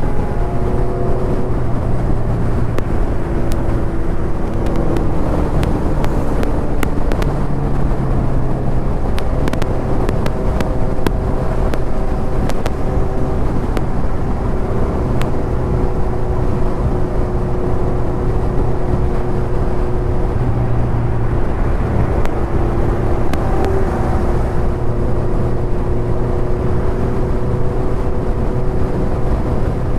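Motorcycle engine running steadily at cruising speed, its note holding nearly even, over a dense low road-and-wind rumble.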